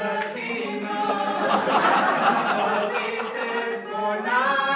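A group of voices singing together without instruments, several pitches at once, with a noisy swell about two seconds in.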